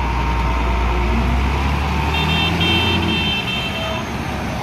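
Hino FM1J truck's diesel engine running with a deep, steady rumble as the truck pulls away, easing off a little past three seconds in. A brief high-pitched beeping tone sounds about two seconds in.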